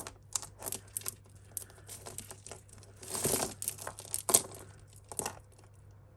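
Costume jewellery being handled and untangled: a run of small clicks and clinks of metal chains and beads, with rustling and a longer scraping rustle about halfway through.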